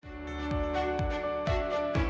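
Intro music with sustained melodic notes over a steady beat, about two beats a second.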